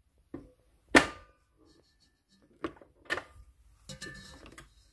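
A handful of sharp knocks and clanks from a stand mixer's bowl and attachment being handled as the kneaded dough is checked. The loudest knock comes about a second in, and a short rattle follows near the end.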